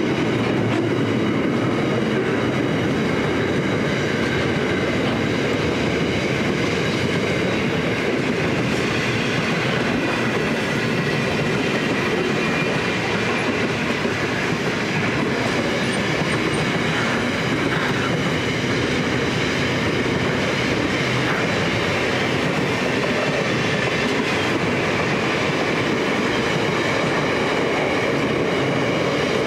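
Freight train wagons loaded with shipping containers rolling past steadily, the steel wheels running on the rails with a continuous rumble and rattle.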